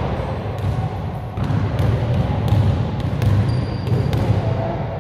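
Basketball bouncing on a gym floor as a player dribbles: a series of sharp, irregularly spaced bounces in a large indoor gym, over a steady low hum.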